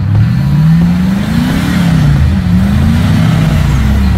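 Ford Bronco II's engine revving up and down under the driver's throttle, its pitch climbing and falling twice, as it works at a slippery off-road obstacle.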